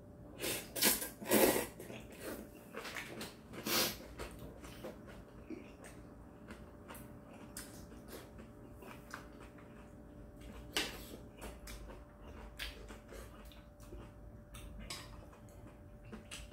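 A person slurping and chewing kalguksu noodles, with short, loud slurps several times in the first four seconds and again at about eleven seconds, and light clicks of metal chopsticks against a ceramic bowl in between.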